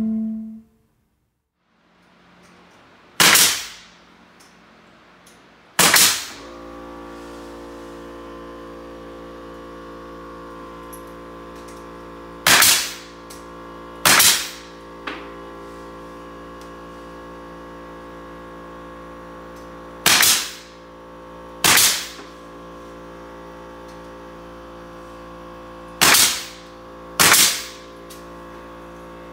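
Pneumatic nail gun firing eight sharp shots, mostly in pairs a second or two apart, driving nails into window trim. A steady machine hum runs underneath from about six seconds in.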